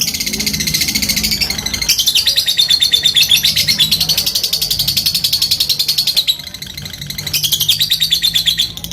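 Lovebird's long, rapid chattering trill ('ngekek'), a fighter-type call, made of fast, evenly repeated high notes in long runs. It breaks off about six seconds in and starts again about a second later.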